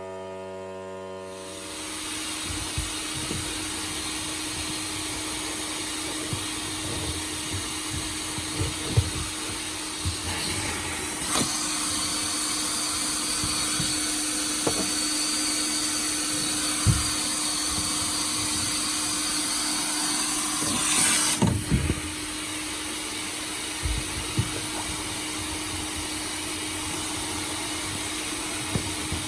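Sandblasting cabinet in use: a steady vacuum-extraction drone with hissing air starts about a second and a half in. In the middle the blast gun's hiss grows louder for about ten seconds, with scattered knocks throughout.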